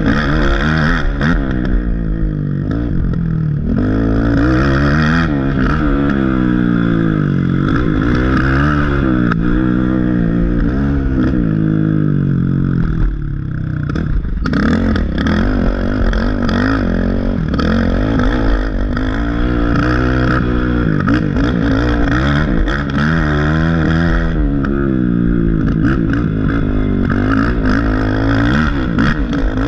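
Race ATV engine revving up and dropping back over and over as the quad is ridden hard on a dirt trail, the pitch climbing and falling every second or two. A brief ease off the throttle comes about 13 seconds in.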